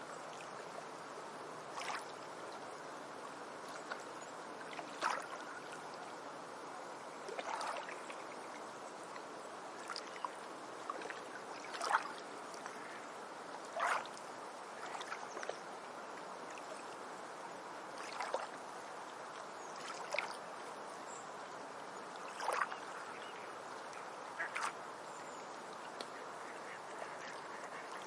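Beach ambience: short, sharp bird calls, roughly one every two seconds, over a steady wash of water.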